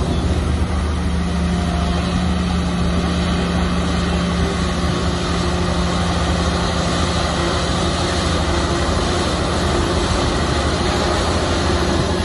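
Shantui bulldozer's diesel engine running steadily, a continuous drone at an even pitch.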